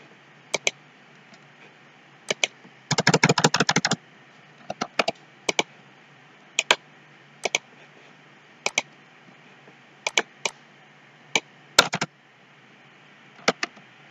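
Computer mouse clicks, many in quick pairs like double-clicks, spaced about a second apart, with a rapid burst of keyboard typing, about a dozen keystrokes, about three seconds in.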